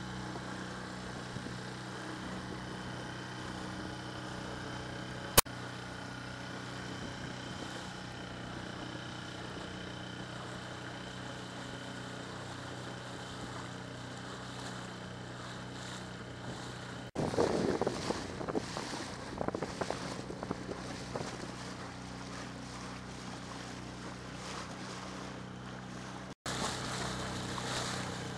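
Small boat's outboard motor idling with a steady low hum over the wash of water. There is one sharp click about five seconds in. From about seventeen seconds there are several seconds of louder, choppy rushing noise.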